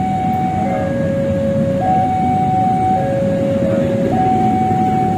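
Railway level-crossing warning alarm sounding, a high and a low held note taking turns about once a second, over a steady low rumble of engines.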